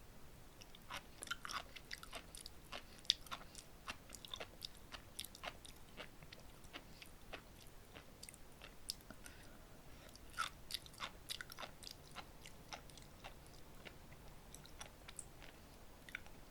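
Sea grapes (umibudo seaweed) being chewed close to the microphone: a quick run of small, crisp pops as the bead-like sprigs burst. The pops come thickest in the first few seconds and again about ten seconds in.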